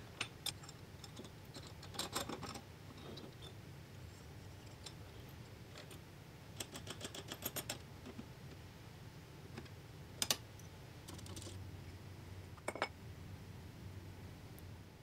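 Light clicks and clinks of small metal parts being handled and fastened: steel brackets, bolts and a hex key on an aluminium frame. There are two bursts of rapid ticking, about two and about seven seconds in, and a few single sharp clicks later.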